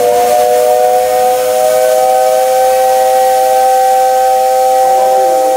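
JNR 8620-class steam locomotive No. 58654 sounding its steam whistle in one long, steady, loud blast of several notes at once that cuts off sharply near the end. It is the whistle sounded as the train prepares to depart.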